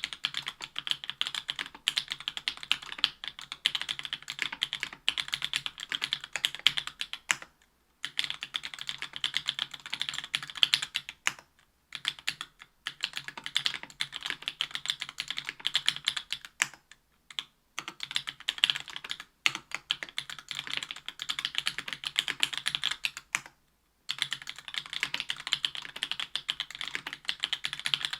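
Fast typing on a mechanical keyboard with stock JWK Black Clear Top 62 g linear switches in an aluminium-plate Special Whale LinWorks board with GMK keycaps. The keystrokes come in dense runs of clicks, with short pauses every few seconds.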